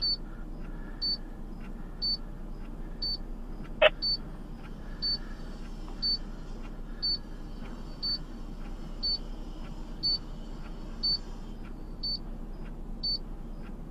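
A short high electronic beep repeating evenly about once a second, over a faint steady hum. A single short chirp comes about four seconds in.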